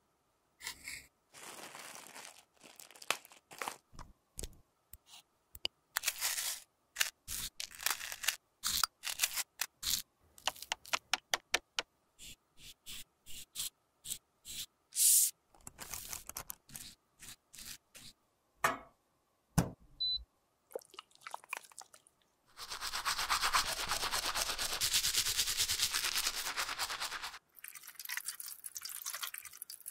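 Close-up handling and cleaning of a plastic compact: cling wrap crinkling, then many sharp clicks, taps and short scraping strokes of a brush working crumbled powder blush out of the pan. In the second half comes about five seconds of a steady rush of running water, the loudest part, then more scraping.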